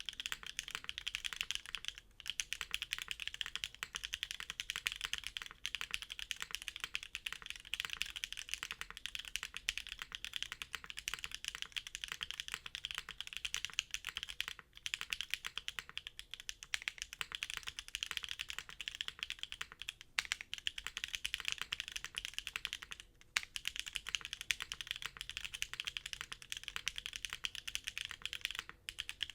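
Continuous fast typing on an F1-8X custom mechanical keyboard with a polycarbonate bottom case, Cherry MX Black linear switches and GMK doubleshot ABS keycaps. It has a few brief pauses between runs of keystrokes.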